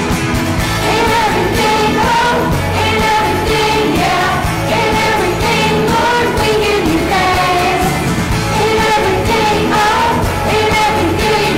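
Worship song with singing over a band backing and a steady beat.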